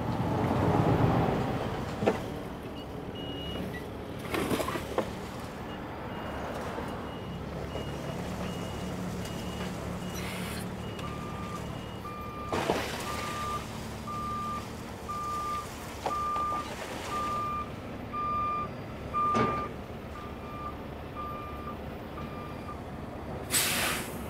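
Heavy diesel truck backing up: its reverse alarm beeps about once a second over the running engines. The engine noise surges near the start, and there are a few short hisses of air.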